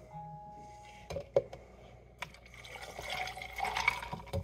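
A mixed cocktail poured from a metal cocktail shaker into a clear cup packed with ice and cucumber, a splashing pour building in the second half. A couple of light knocks come a little over a second in.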